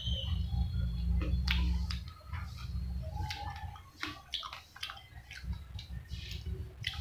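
Close-up chewing of fried chicken pakora with raw onion: wet mouth clicks and crisp crunches in an irregular run, with fingers picking through the food on a paper plate.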